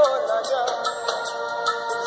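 Music from a Punjabi Christian devotional song: a melodic line over held notes.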